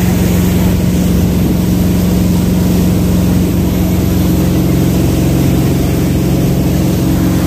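Jet boat's engine running with a loud, steady drone, a lower tone joining in about halfway through.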